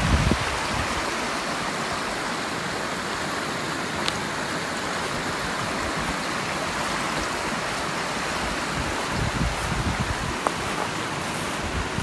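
Shallow rocky creek running fast over stones, a steady rushing of water.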